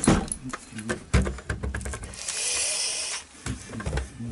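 Clicks and knocks of a radio-control transmitter's plastic case and AA batteries being handled and set down on a wooden table, with about a second of hissing rustle midway.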